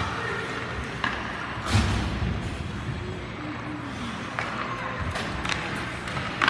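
Several sharp knocks and thuds, the loudest a little under two seconds in, over a background of faint distant voices.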